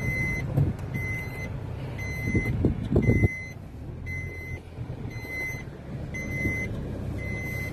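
Swift Dzire's reverse warning beeper giving a short high beep about once a second, heard from inside the cabin over the petrol engine idling. A few knocks and rustles come about two to three seconds in.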